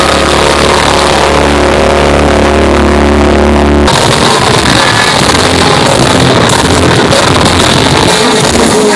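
Rock band playing live, loud and recorded with a harsh, overloaded sound. It opens on a held, droning chord, then about four seconds in the full band comes in at once.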